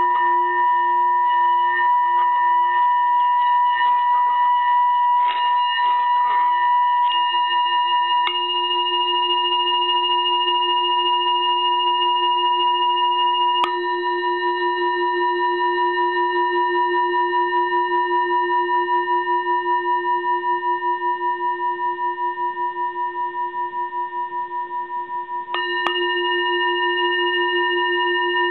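Tibetan singing bowl ringing steadily: a low hum with several higher overtones above it and a slow, even wobble in loudness. A brief irregular rattle comes about five to seven seconds in, and the ring shifts suddenly a few times.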